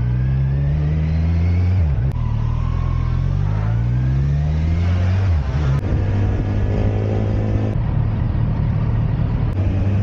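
Kawasaki Versys 1000 SE's inline-four engine through an Akrapovic titanium slip-on exhaust with its silencer insert removed, pulling away under acceleration: the pitch climbs, drops at an upshift about two seconds in, climbs again, drops at a second upshift about halfway through, then holds steadier as the bike cruises.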